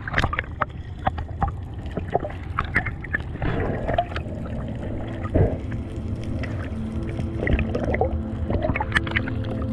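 Underwater sound picked up by an action camera in its housing: a low, muffled rumble of moving water with bubbles crackling and clicking, and a louder knock about halfway through.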